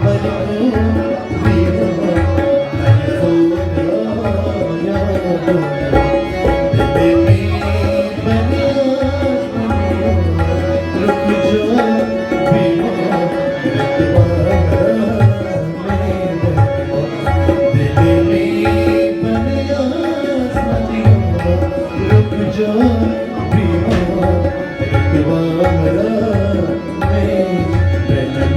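Instrumental passage of an Afghan song: tabla playing a busy, steady rhythm under held melody notes.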